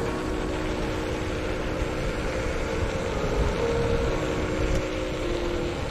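Electric scooter riding along a road: steady wind rush on the microphone and rumble of the wheels on the road, with a few faint held tones underneath.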